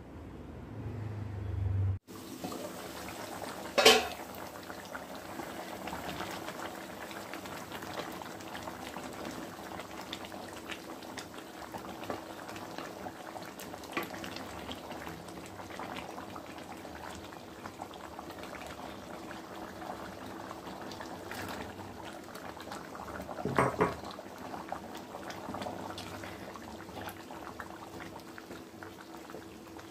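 Thick mutton dalcha (lentil, mutton and vegetable curry) simmering and bubbling in an open pan, a steady crackly bubbling with small ticks, after a low hum in the first two seconds. A sharp knock comes about four seconds in and a short clatter about three-quarters of the way through.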